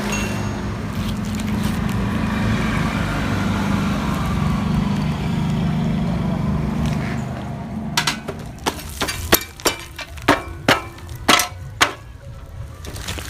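Yamaha RX-King's two-stroke single-cylinder engine running steadily, then dying away about eight seconds in. It is followed by a string of about ten sharp knocks over some four seconds.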